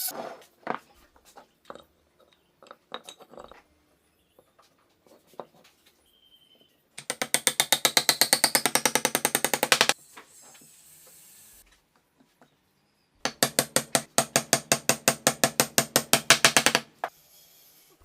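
Rapid mechanical clicking, about ten clicks a second, in two runs of roughly three seconds each. Scattered knocks from tools being handled come before and between the runs.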